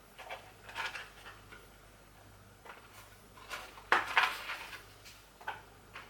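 Hands opening a small jewelry package and taking out a bracelet: a scattering of short clicks and rustles, the loudest about four seconds in.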